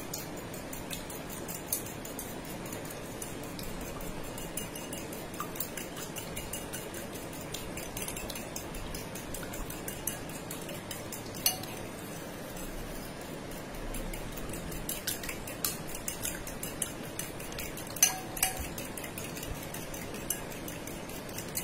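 Fork beating raw eggs in a bowl: a fast, steady clatter of the tines against the bowl, with a few louder clinks.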